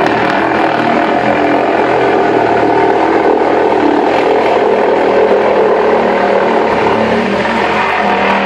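Kubota SVL90 compact track loader's diesel engine running loud and steady.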